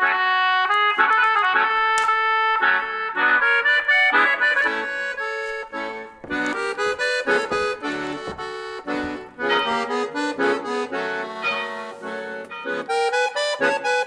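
Instrumental music: a reed instrument playing held chords and a moving melody, with short breaks in the notes about six and nine seconds in.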